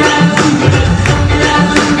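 Loud, percussion-driven dance music with a steady fast beat, played over a PA sound system.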